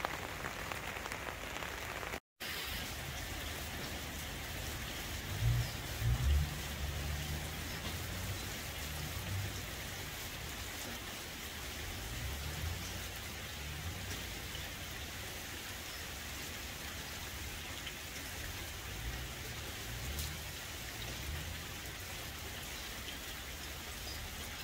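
Steady rain falling on puddles and wet grass, an even hiss of drops hitting water. A few brief low rumbles come about five to six seconds in.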